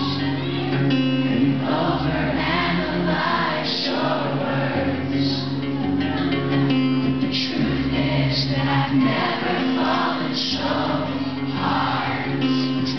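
Live acoustic rock performance: two acoustic guitars strumming with singing over them, in a concert-hall mix.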